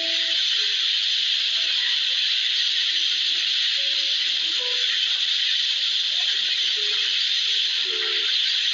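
Steady rushing hiss of water and spray breaking along a moving boat's bow wave, with faint music notes underneath.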